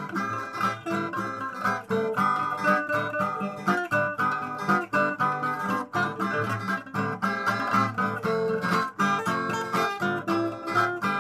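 Solo acoustic guitar playing an instrumental break in a Malay song: a run of quick picked melody notes over bass notes, with no singing.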